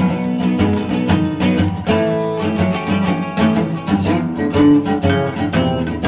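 Background music: an acoustic blues track with plucked and strummed acoustic guitar.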